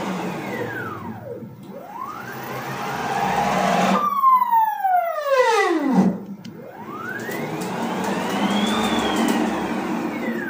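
NEMA 23 stepper motors on DM542 drivers at 36 V moving a homemade CNC router's axes at rapid feed. Their whine rises in pitch as the axis speeds up and falls as it slows, in long sweeps. About four seconds in there is a clean falling glide lasting about two seconds.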